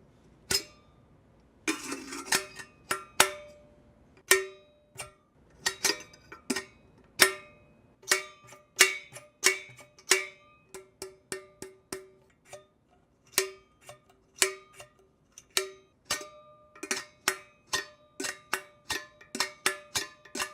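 Empty metal kettle clanking as it is handled, its lid knocking against the body; each knock rings on with a short metallic tone. A brief scraping rattle comes about two seconds in, and the knocks come faster, several a second, near the end.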